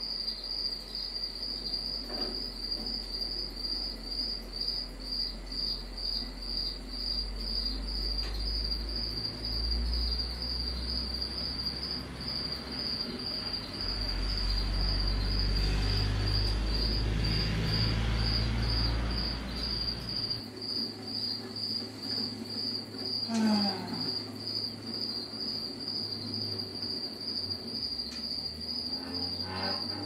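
CNC plasma table gantry drives humming as the machine runs a scribe over steel plate, the hum changing as the axes start and stop, then cutting out about two-thirds of the way in. A scratching from the scribe point dragging on the steel is loudest in the middle. A steady, evenly pulsing high chirping, like a cricket, runs throughout.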